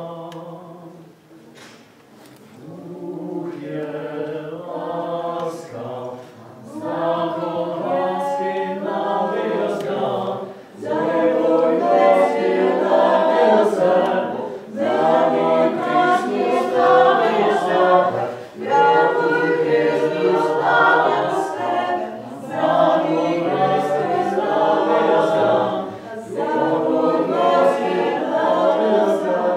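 A small group of voices singing a cappella in several parts, in phrases of about four seconds with short breaks between. It starts softly and swells, reaching full volume about ten seconds in.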